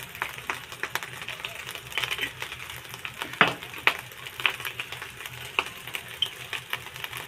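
Irregular light clicks and knocks, with one louder knock about three and a half seconds in, as sauce bottles are handled, shaken and tapped over an aluminium pot of chicken fried rice.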